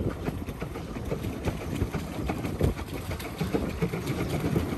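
Pedal boat's paddle wheel churning the water as it is pedalled, a steady run of small splashes and clicks over a low rumble.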